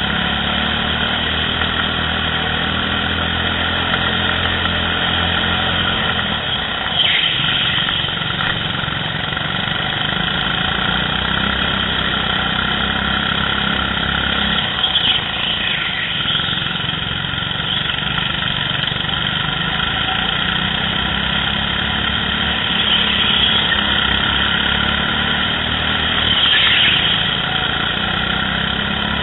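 Go-kart engines running steadily through a race lap, the engine note shifting with the throttle. A few short high squeals that fall in pitch cut through, about a quarter of the way in, around the middle and near the end.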